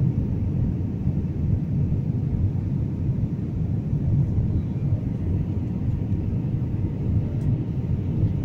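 Steady low rumble of an airplane in flight, heard from inside the passenger cabin: engine and airflow noise.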